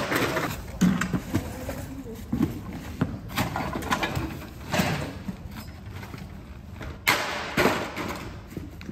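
Irregular knocks, clanks and thuds of scrap metal, wood and other junk being tossed onto and shifted about in a heap. The louder hits come every second or two, the loudest near the end.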